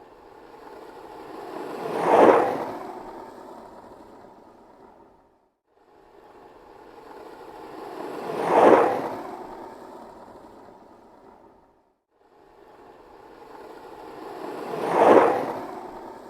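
Skateboard wheels rolling past on pavement three times, each pass swelling to a peak and fading away over about five seconds, with a brief silence between passes.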